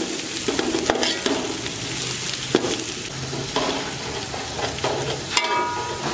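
Onion-tomato masala sizzling as it fries in oil in a large metal pot, while a metal spoon stirs it, scraping and clicking against the pot. The spices have just gone in and the tadka is being browned.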